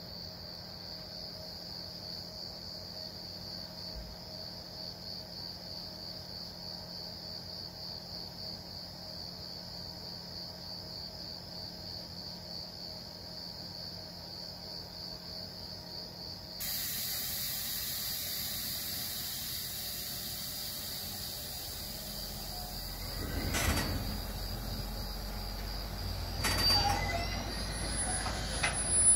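Crickets chirping steadily. About two-thirds of the way in a steady hiss starts. Near the end a freight train of sliding-wall wagons begins to move with a low rumble, a few clanks and a brief high wheel squeal.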